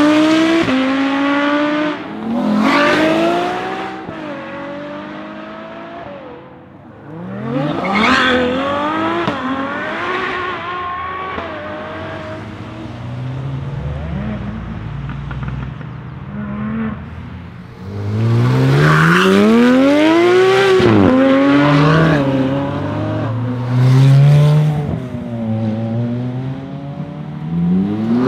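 High-performance sports cars accelerating hard past one after another, their engines revving up through the gears with rising pitch that drops back at each upshift. There is a lull about a quarter of the way in. The loudest, longest run comes about two-thirds in, followed by several short revs.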